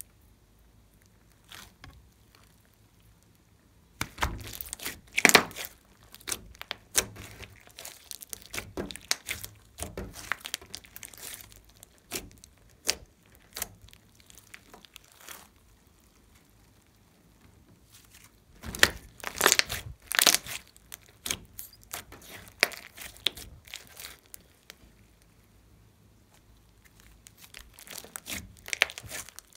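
Hands pressing, squeezing and folding a large lump of glossy slime mixed with clay, giving sticky crackling and popping. It is quiet for the first few seconds, then comes in two long bouts with a pause between them, and picks up again near the end.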